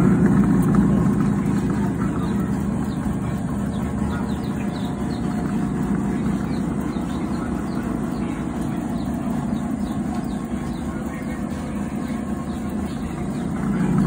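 Mini washing machine's motor running, a steady hum as the pulsator spins in the empty tub.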